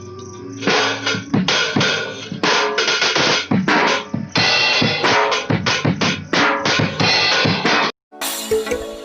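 A drum kit being played, likely the newly restored set: bass drum and snare hits in a quick, busy beat with fills. It stops abruptly near the end, and different music starts.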